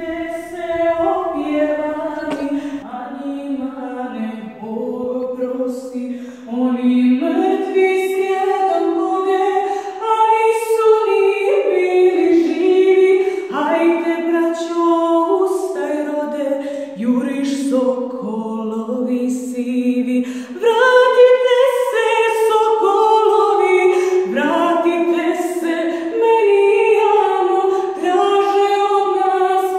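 A woman singing solo and unaccompanied inside a church, a slow Serbian song in long held notes that move from one pitch to the next.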